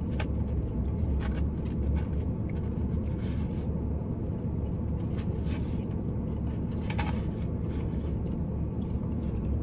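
A plastic fork scraping and picking at salad in a plastic takeout container, a handful of short scrapes and clicks, over a steady low rumble inside a parked car's cabin.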